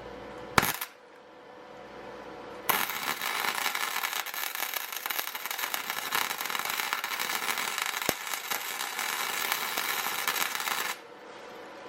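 Flux-core MIG welder arc crackling steadily for about eight seconds, then cutting off abruptly, as a broken exhaust manifold stud is built up with weld so the heat will break it loose. A short sharp burst about half a second in comes before it.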